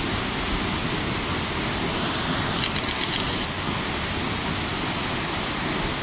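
Steady rushing noise of a waterfall, even and unbroken. About two and a half seconds in comes a quick run of about six sharp high ticks ending in a short high beep.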